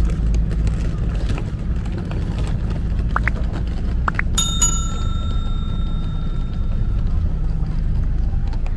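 A small metal bell struck once, about four and a half seconds in. It rings out clearly and fades over a couple of seconds above a steady low rumble of the surroundings. Two brief high chirps come just before it.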